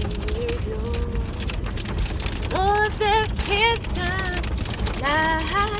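Rain striking the car's roof and windshield as a dense spread of small ticks over the low rumble of the car driving. From about two and a half seconds in, a woman sings a wordless, wavering melody.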